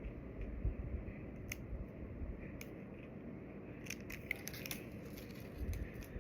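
Eyeliner pencil's packaging being handled and opened: scattered light clicks and crinkles, busiest from about four to five seconds in, with a few soft low thumps of handling.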